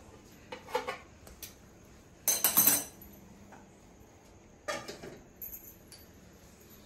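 Stainless steel pots and vessels clinking and clattering as they are handled on a kitchen stove. The loudest clatter, about half a second long, comes a little past two seconds in, with lighter knocks before and after it.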